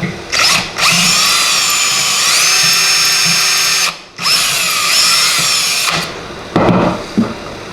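Electric drill running in bursts while drilling a hole in a steel vise part. A brief trigger pull is followed by a long run whose whine rises in pitch partway through. It stops for a moment about four seconds in, runs again until about six seconds in, then gives two short blips.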